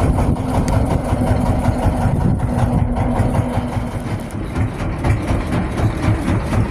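An engine running steadily with a low rumble and a steady hum that fades out about four seconds in.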